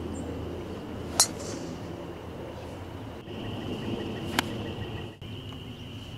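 Two sharp club-on-ball strikes of golf shots, about three seconds apart: a tee shot a little over a second in, then a shot off the fairway. A steady high-pitched drone and outdoor background run underneath.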